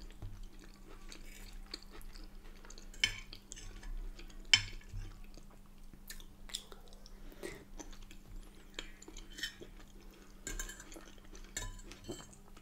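Fork and knife clinking and scraping on a plate as the last bits of food are gathered up, with quiet chewing between. The clicks come singly and irregularly, a second or two apart.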